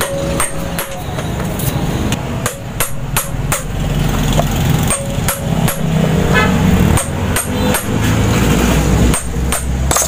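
Small hammer striking a metal tool held on a washing machine pulsator's centre screw: a run of sharp metallic taps, roughly two a second, to free a screw that is seized very tight.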